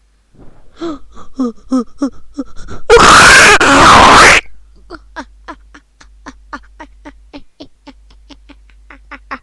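A voice laughing in a rapid run of short, breathy syllables. About three seconds in comes a loud, harsh rasping burst lasting about a second and a half, and then a long, fast train of laughs at about four a second.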